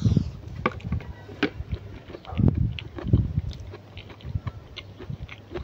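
Close-up chewing and mouth sounds of a man eating spicy instant noodles, with scattered light clicks of a metal fork against the plate.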